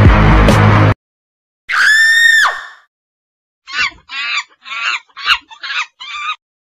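Chicken sound effect: one drawn-out squawk at a steady pitch that drops off at the end, followed by a run of about six short, quick clucks. A loud music clip cuts off about a second in, before the squawk.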